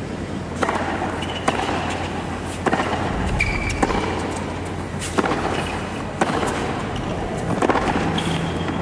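Tennis rally on a hard court: a racket strikes the ball about seven times, a little over a second apart, with short shoe squeaks between shots over a low crowd hum.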